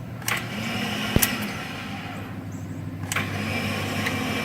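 Starting system of a 2005 Ford F-150 with the 5.4-litre Triton V8 in a no-crank condition: sharp clicks with a steady high-pitched whine between them, and the engine does not turn over. The cause of the whine is unknown to the owner.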